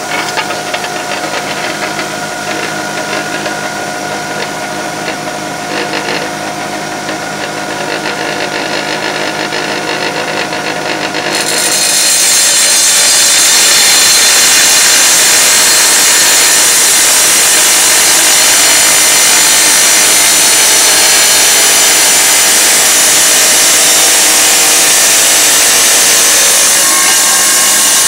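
Tile saw running with a steady motor whine; about eleven seconds in the blade bites into the tile and a louder, even hiss of the cut takes over, the tile being fed freehand.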